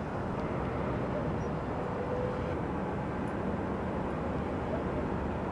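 Steady distant rumble of electric trains moving along the line and through the rail yard, heard as an even outdoor roar with no distinct clanks or horns.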